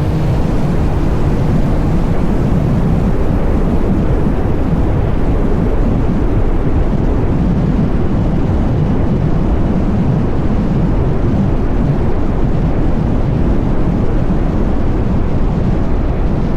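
Kawasaki Z900 SE's inline-four engine running loud and steady through an SC-Project CR-T aftermarket exhaust.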